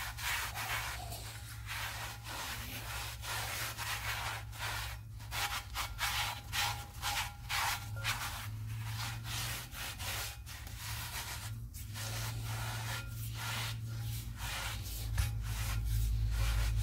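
A cloth rag rubbing around the inside of a Land Rover Defender's handbrake drum in quick, repeated strokes, wiping away brake cleaner and surface rust.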